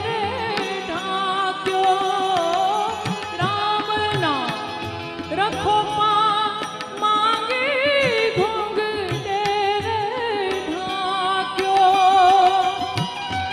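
Woman singing a Gujarati folk song in a wavering, ornamented voice, with tabla strokes and harmonium accompaniment.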